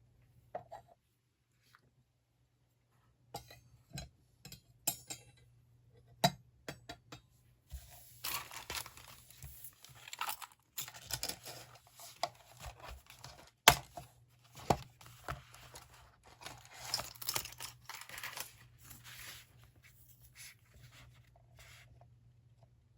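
Hands working with desk stationery. First a few separate taps and clicks, then about thirteen seconds of papery rustling and tearing, broken by sharp ticks.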